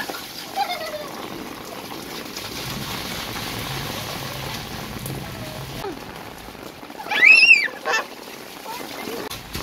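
Steady rain falling on a tiled rooftop terrace, with bare and sandalled feet splashing through the wet. About seven seconds in, a loud high squeal rises and falls over half a second.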